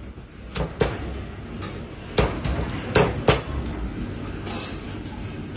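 Meat cleaver chopping roast goose on a thick wooden chopping block: several sharp chops at uneven intervals.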